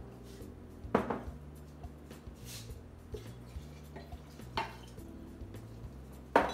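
Glassware clinking and knocking on a counter as brandy is measured in a glass measuring cup and poured into a glass pitcher, with a light trickle of liquid. There are three sharp knocks: about a second in, about four and a half seconds in, and the loudest near the end.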